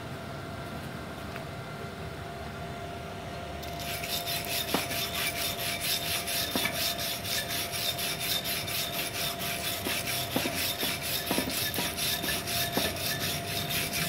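Hand wire brush scrubbed quickly back and forth over freshly laid stick-weld beads on a steel plate, about four or five strokes a second with a few sharper knocks, cleaning off the slag. The brushing starts about four seconds in.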